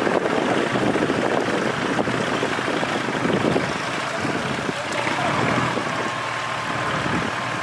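Tractor diesel engines labouring under heavy load as hitched-together tractors pull a stuck tractor through deep paddy-field mud. A steady higher whine comes in about five seconds in.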